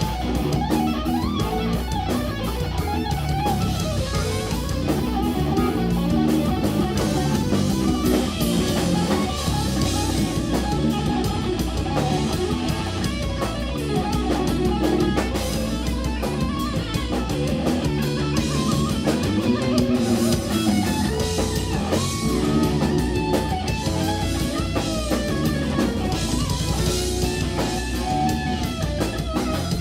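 Live instrumental rock from a guitar, bass and drums trio: electric guitar playing moving lead lines over bass and a drum kit, continuous and loud.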